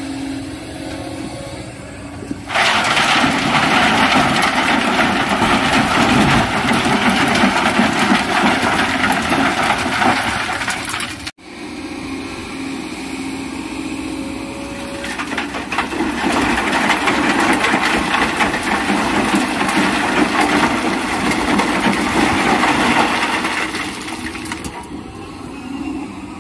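Hydraulic excavator running while its bucket dumps sand and rocks into a dump truck's steel bed: a long rushing, rattling pour starting a couple of seconds in, then a second pour after a short break.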